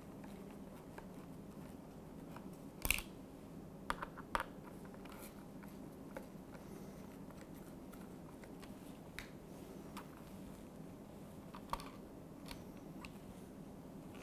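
Light handling clicks as Phillips head screws are backed out of the dishwasher's plastic control console with a screwdriver: a few sharp ticks about three and four seconds in and once more near the end, over a faint steady hum.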